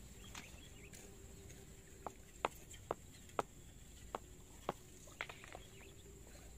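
A series of sharp, short clicks or knocks, about seven at irregular intervals over three seconds, over a faint steady high-pitched hiss.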